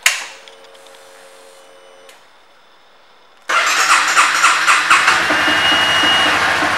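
Ignition key clicks on and a faint hum follows for about a second and a half, the fuel pump priming; about three and a half seconds in, the 2016 Honda CBR300R's single-cylinder engine starts and settles into a steady idle.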